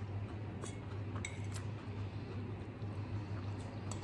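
A metal fork clinking and scraping against a plate several times in short, sharp, lightly ringing taps, over a steady low hum.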